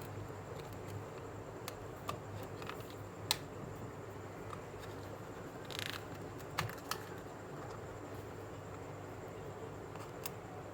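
A few light, scattered clicks and taps, with a short hiss about six seconds in, over a steady low hum.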